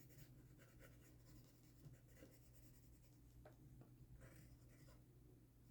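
Very faint scratching of a pencil on paper in short, scattered strokes as a drawing is worked, over a low steady hum.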